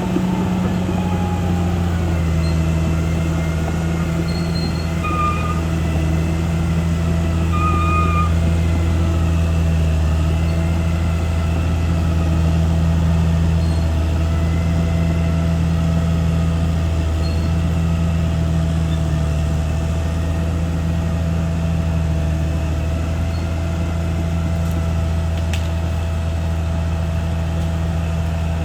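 Caterpillar D6R XL crawler bulldozer's diesel engine running at a steady speed, a deep continuous drone. A few brief high squeaks sound about five and eight seconds in.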